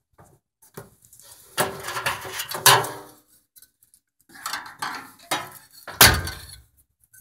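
Hand rummaging inside a tumble dryer's metal drum: a string of irregular clattering knocks and rattles, the sharpest about six seconds in, as a small circuit-board piece with copper hinges is taken out after a vibration test.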